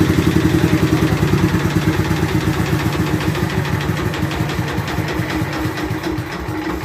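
Changchai L32 single-cylinder diesel engine driving a 15 kW generator, running with an even firing beat. The beat slows and gets quieter over the seconds.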